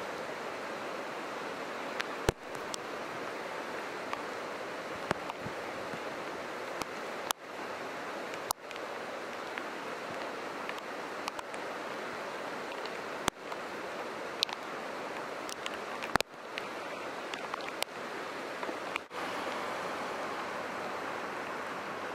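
Heavy rain falling steadily, a dense hiss, broken by scattered sharp clicks, some followed by a brief dip in level.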